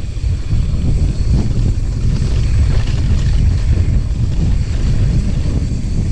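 Wind buffeting the microphone while a mountain bike rides a dirt trail: a steady, loud low rumble, with tyre noise and a few faint clicks.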